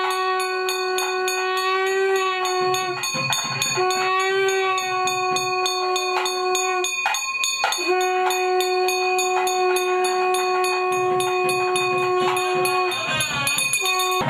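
Temple bell rung rapidly and steadily during an oil-lamp arati, over three long held notes from a wind instrument and short bursts of drumming.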